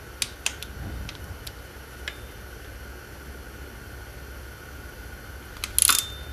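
Click-type torque wrench tightening the water pump's top bolts on a Subaru EJ engine: a few light metallic ticks in the first two seconds, then a sharp, louder click near the end as the wrench breaks over at its set torque. A steady low hum sits underneath.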